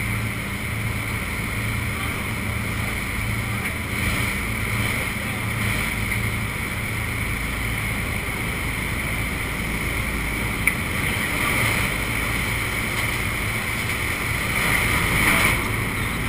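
Steady drone of the aircraft's engines mixed with rushing wind from the open jump door, heard from inside the plane's fuselage. One short click partway through, and the rush swells a little near the end.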